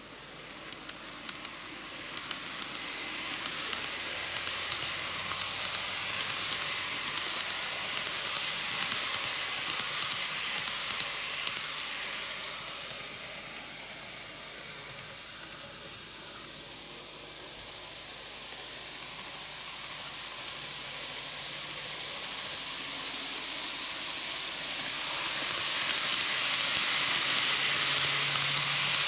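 Greenmax N-gauge Keikyu New 1000 series model train running on TOMIX plastic track: a steady high hissing rattle of wheels and running gear, with a few clicks at the start. It grows louder as the train passes close, fades in the middle while the train is on the far side of the loop, and builds again to its loudest as the train comes near at the end.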